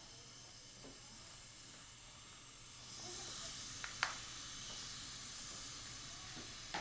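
Steady hiss that grows stronger about three seconds in. About four seconds in there is a single sharp metallic click as a surgical torque ratchet wrench is seated on the dental implant's fixture mount.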